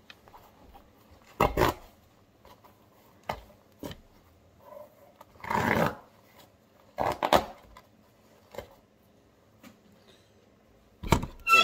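Old chain-stitch thread being pulled by hand out of the welt seam of a leather Red Wing Iron Ranger boot: short, sharp rips as stretches of thread tear free of the leather, about seven times with pauses between.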